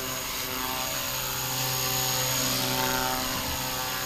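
Blade Fusion 180 RC helicopter's brushless electric motor and rotor blades running in stunt-one (idle-up) mode: a steady whine with a constant headspeed.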